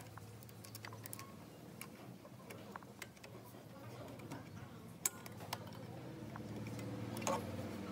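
Scattered light clicks and taps over a low steady hum that grows louder near the end.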